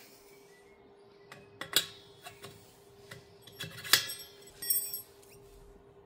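A series of light metallic clinks and knocks, about eight in all, one of them ringing briefly near the end, over a faint steady hum.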